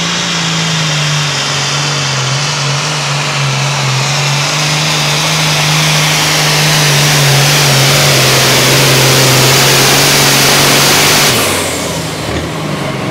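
Case 2294 light super stock pulling tractor running flat out under load on the pulling sled. Its engine note holds steady and sags slowly in pitch as it is loaded down, while a high whine builds and gets louder. About eleven seconds in the throttle is cut sharply as the pull ends.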